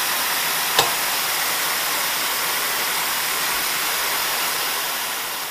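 Steady hiss of compressed air from a mist-coolant nozzle blowing on the cutter while a milling machine makes a finishing pass, with one sharp click about a second in. The hiss fades out near the end as the air is shut off.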